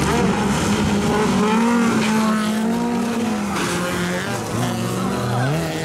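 Several stock car racing engines revving, their pitch rising and falling as the cars race and slide on a loose dirt track, with tyre skidding noise underneath.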